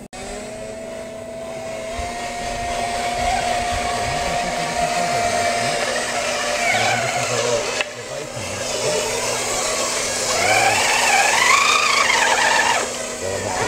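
Small electric motors and gearboxes of radio-controlled model construction machines whining. A steady whine runs for the first half, then the whine rises and falls in pitch as a model dump truck moves, loudest near the end.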